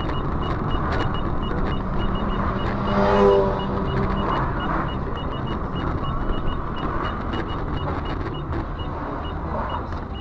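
Car road and engine noise, steady throughout, with a faint high beep repeating a few times a second and a brief louder pitched tone about three seconds in.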